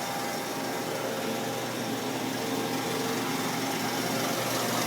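Marvel MV460 PC tilt-frame vertical band saw running with a steady hum and hiss and no knocking or squeal. It has new bearings, bushings and a belt.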